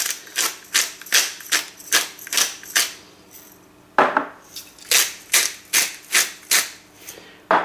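Salt and pepper grinders being twisted over a plate of breadcrumbs, grinding in rhythmic crackling turns about three a second. There are two bouts of grinding, with a brief pause about three seconds in.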